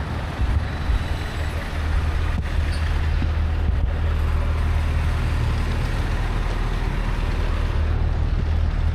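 Steady low rumble of motor-vehicle noise, with a couple of faint knocks about two and a half and four seconds in.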